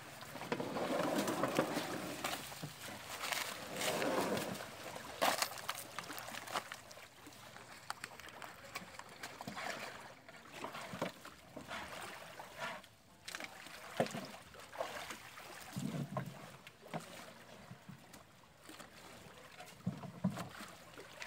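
Shallow lake water splashing around people moving at the edge of wooden boats, with scattered knocks and clatter of gear against the hulls. The splashing is strongest in the first few seconds.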